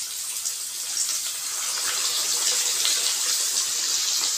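Masala-coated fish pieces deep-frying in hot oil in a kadai: a steady sizzle with small crackles, a little louder from about a second in.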